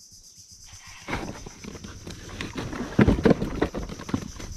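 Fishing reel cranked hard with a rapid run of clicks and knocks as a fish is hooked, loudest about three seconds in.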